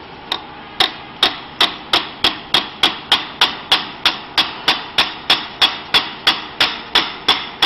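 Hammer tapping steadily on the steel fittings of a paper-forming machine's mold to nudge it into position, about three sharp blows a second, each with a short metallic ring.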